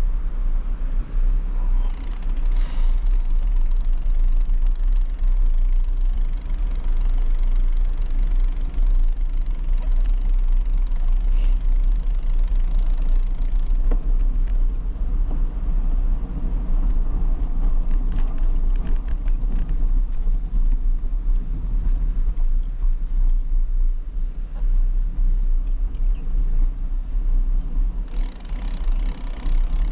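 Steady low rumble of a bicycle ride picked up by a handlebar-mounted action camera: wind buffeting the unprotected microphone and the tyres rolling over a concrete path, with a faint click or two.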